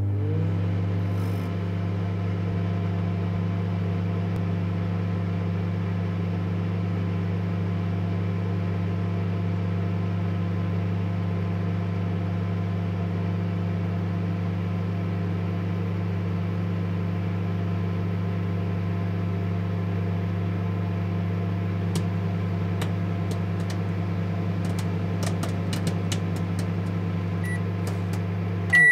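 Microwave oven running with a steady low hum. From about two-thirds of the way through, popcorn starts popping: a few scattered sharp pops at first, coming faster toward the end, just before the hum cuts off.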